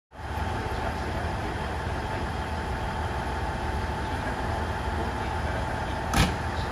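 JR East KiHa 110 series diesel railcar idling at the platform, a steady low rumble. A single sharp knock about six seconds in.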